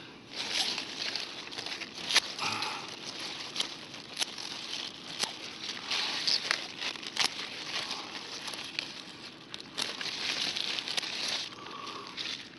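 Spinach plants being picked by hand: leaves rustling, with irregular snaps and crackles as stems are broken off.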